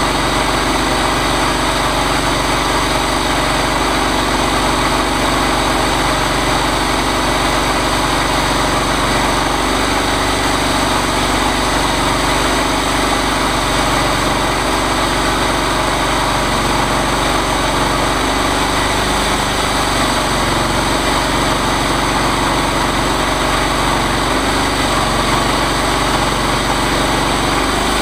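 Chainsaw engine on a chainsaw mill running steadily, at an even, unbroken pitch.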